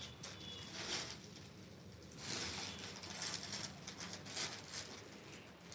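Embroidered chiffon dupatta rustling as it is handled and folded, in irregular bursts of rustling with a longer one about two seconds in.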